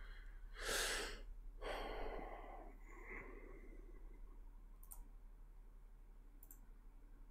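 A man breathing out audibly into a close microphone: a sigh about a second in, followed by a softer breath. After that, faint room tone with two small clicks later on.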